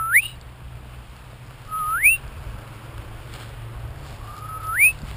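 A person whistling three times to call a dog. Each whistle is a short held note that sweeps sharply upward at the end.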